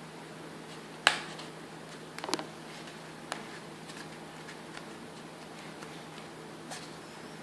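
A few sharp clicks and taps from hands working cord and a cardboard tube while tightening a knot, the loudest about a second in and a small cluster a little after two seconds, over a steady faint hum.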